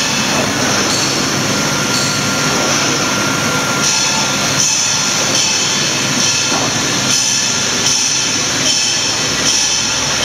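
Single facer corrugating machine running, a loud steady mechanical din of rolls and drive with a high hiss over it and no pauses.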